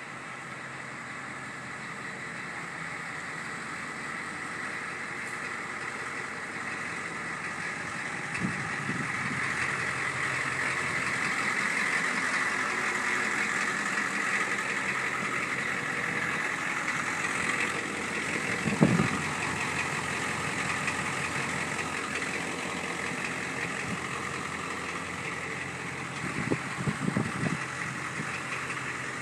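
1985 Ford E-350 Clubwagon's 6.9 L IDI V8 diesel idling steadily, growing louder over the first ten seconds or so. A few short knocks sound over it, the loudest about two-thirds of the way in.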